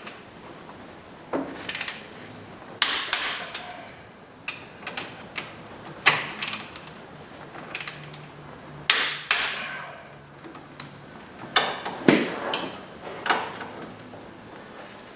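Torque wrench working the front hub mounting bolts up to 65 foot-pounds: irregular sharp ratchet clicks and metal clanks, a dozen or so, some ringing briefly.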